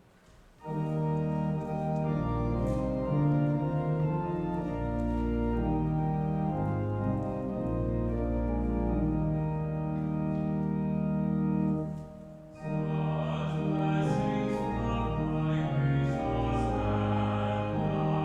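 Church organ playing slow, sustained chords, with a short break about twelve seconds in before it goes on.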